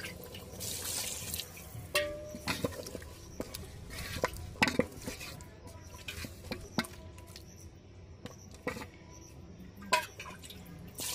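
Wooden spatula stirring a wet meat curry in a large aluminium pot, with irregular knocks against the pot's rim and sides, one of which rings briefly about two seconds in, over a wet sloshing of the gravy.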